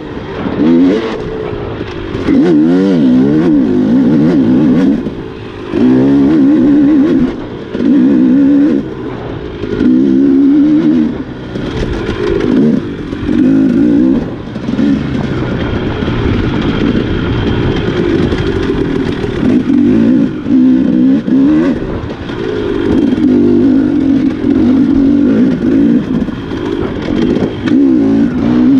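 Off-road dirt bike engine under hard, constantly changing throttle, the revs rising and falling, with loud bursts every second or two and short dips as the throttle is shut between them.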